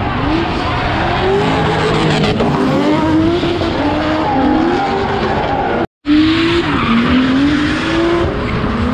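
Drift car engine revving up and down again and again over screeching tyres as the car slides. The sound drops out for an instant about six seconds in.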